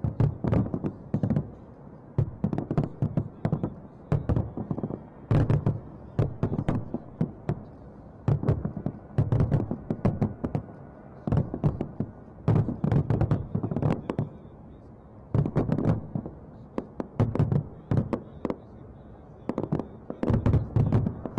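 Fireworks going off in volleys of sharp bangs, clusters of shots every one to two seconds with short lulls between.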